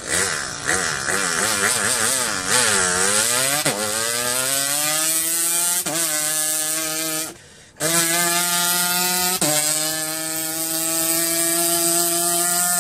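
A boy imitating a two-stroke motorcycle with his voice. It starts with a warbling idle, then the pitch climbs in steps, dropping suddenly at each imitated gear change, with a short break for breath about seven seconds in.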